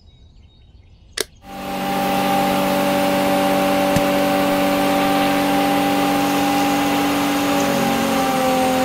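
Small electric motor of a miniature DIY flour mill switched on with a click about a second in, then running steadily with a constant whine. There is a light tick about four seconds in, and the pitch dips slightly near the end.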